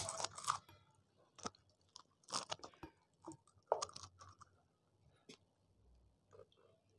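Crisp, hollow pani puri shells being cracked open with the fingers: a sparse scatter of small crunches and crackles.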